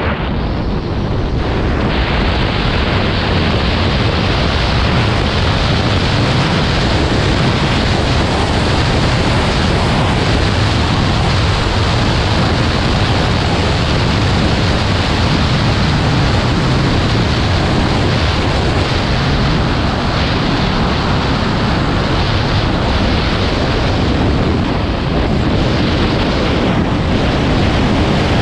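Loud, steady wind roar over a helmet-mounted action camera's microphone as a skier runs straight downhill at up to about 100 km/h.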